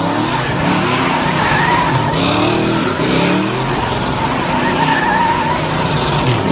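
A car doing donuts: its engine revs up and down over and over while the tyres squeal and spin against the pavement.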